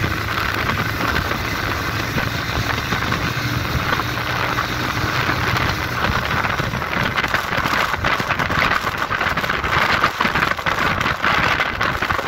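Motorcycle engine running steadily at road speed, with wind rushing over the microphone. About halfway through the wind buffeting grows gustier and covers the engine hum.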